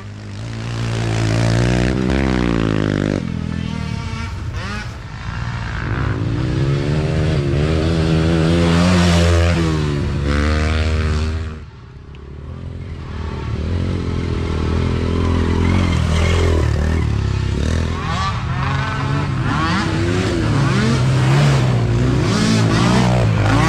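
Mini ATV engines revving as the quads race along the trail, pitch rising and falling with the throttle. The sound drops briefly about halfway through, then builds again as more quads approach.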